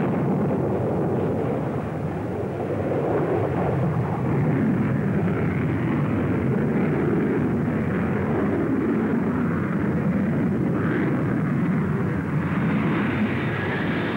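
Steady roar of jet engines as military jets fly low past, the first being the Avro Vulcan test bed with an Olympus engine and reheat mounted beneath its fuselage.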